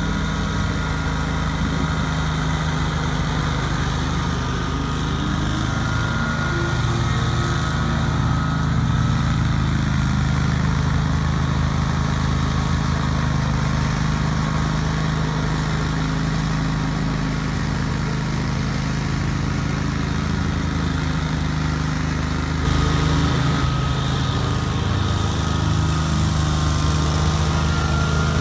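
A 2003 Great Dane 52-inch stand-on mower's engine running steadily under load while it cuts tall grass.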